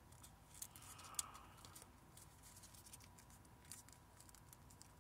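Faint, scattered crinkles and ticks of a paper sheet being handled and creased by hand while folding an origami crane, with one slightly sharper crackle about a second in.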